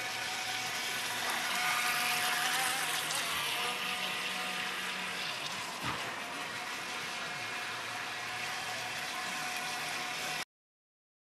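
Small radio-controlled speedboat (Josway Magic Vee) running at speed: a thin motor whine over a steady rushing hiss, with one sharp knock about six seconds in. The sound stops abruptly near the end.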